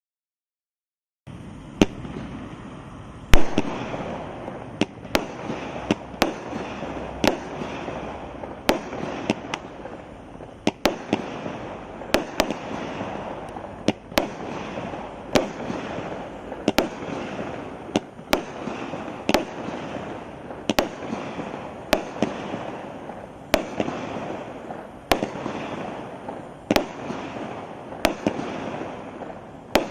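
Golden Umbrella Power Blast consumer firework going off, starting about a second in: a sharp bang about every three-quarters of a second over a continuous hiss of burning effects, the loudest bang about three seconds in.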